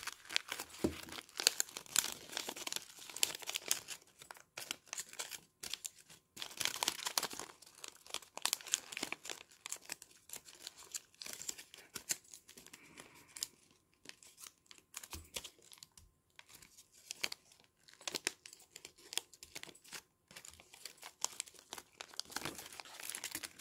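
Colored origami paper crinkling and rustling as it is folded and pressed into creases by hand, in irregular bursts with short pauses.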